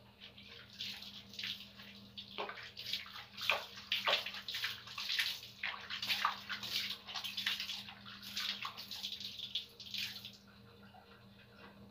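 Water splashing and pouring over a person bathing, in irregular splashes that stop about ten seconds in.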